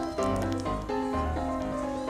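Background music: a melody of held notes moving in steps over a bass line.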